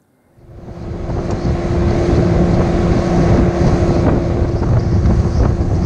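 Small boat's motor running steadily with the boat underway, wind buffeting the microphone. The sound fades in over the first second or two, then holds at a constant pitch.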